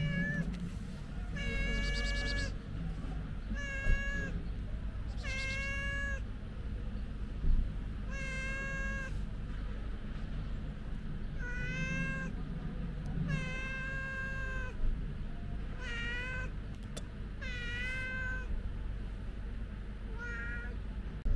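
A tabby-and-white cat meowing over and over: about a dozen drawn-out calls, each from half a second to a second and a half long, coming every second or two.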